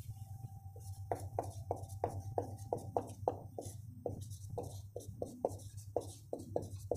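Marker pen writing on a whiteboard: a quick run of short strokes, about three or four a second, over a steady low hum.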